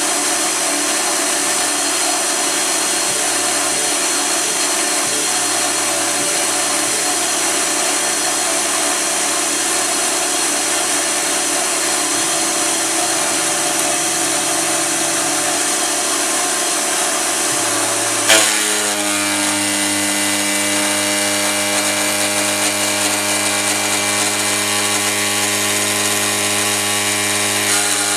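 CNC milling machine spindle at 7000 rpm driving a two-flute 1-inch insert cutter through 6061 aluminum plate, roughing at a quarter-inch depth of cut. About 18 seconds in there is a sharp click and the cutting sound turns into a steadier, more tonal whine.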